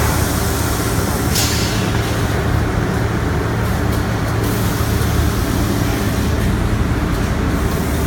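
CNC profile machine running steadily, a loud mechanical drone with a low hum, with a short hiss about a second and a half in.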